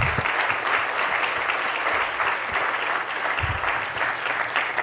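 Conference audience applauding, a dense steady patter of many hands clapping, with a couple of dull low thumps.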